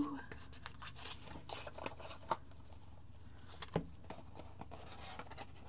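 Soft handling of a small cardboard card box and a tarot deck as the cards are slid out: faint paper rustles and scattered light ticks, with sharper taps about two and a third seconds in and again near four seconds.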